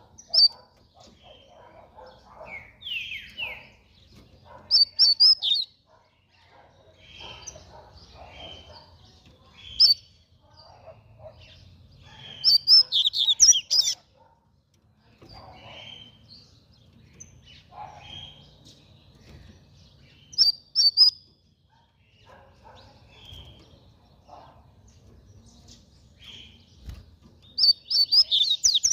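Double-collared seedeater (coleiro) singing short, rapid, high phrases about five times, a few seconds apart, the longest and loudest around the middle and at the end, with quieter chirps in between.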